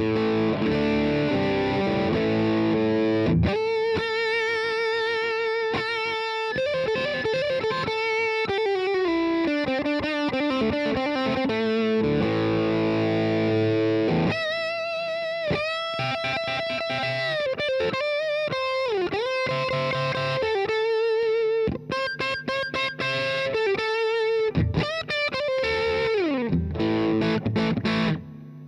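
Background music: distorted electric guitar playing long, bending notes with vibrato.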